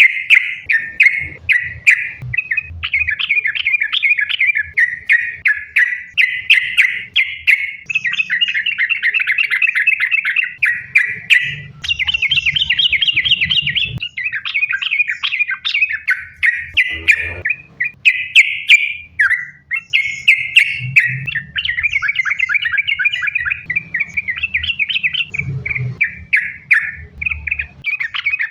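Yellow-vented bulbul (trucukan) singing a fast, unbroken run of chattering phrases, one phrase running into the next, with faint low rumbling underneath.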